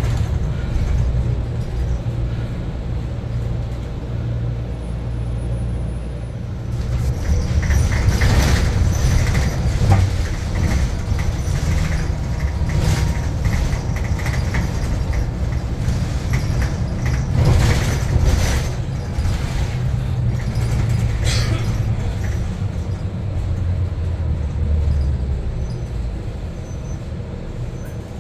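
Cabin ride noise of a battery-electric New Flyer XE60 articulated bus underway: a steady low road and drivetrain rumble, with the traction motors audible. Louder, rougher stretches come through the middle.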